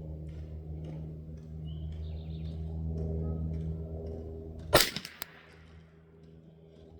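A single shot from a Ruger 10/22 Competition .22 LR rifle, a sharp crack near the end, followed by a fainter crack about half a second later. A steady low hum runs beneath it until the shot.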